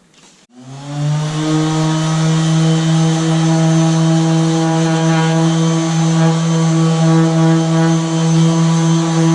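Power sander fitted with a soft pad starting about half a second in, spinning up in pitch briefly and then running at a steady speed with a steady whine, sanding a liquid-metal coating so the pad follows its grooves and texture.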